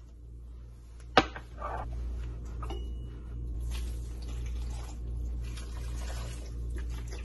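A sharp click about a second in, then chicken broth pouring from a carton into a slow cooker, splashing unevenly in pulses.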